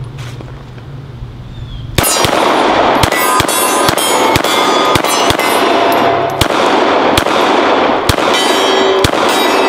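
Gen 4 Glock 19 9mm pistol fired at a steady pace, about a dozen shots starting about two seconds in, roughly one to two a second. Steel targets ring after hits.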